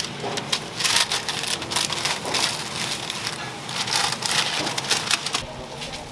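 Toast fillings sizzling on a street stall's flat-top griddle, with irregular bursts of scraping and crunching that rise out of the sizzle several times.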